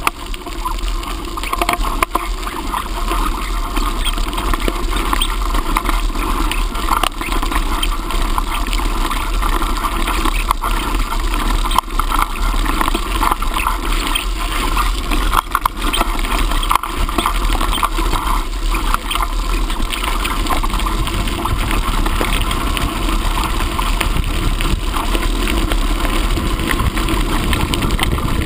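Bicycle being ridden along a path, with wind buffeting the microphone in a steady low rumble over tyre noise and frequent small clicks and rattles from the bike.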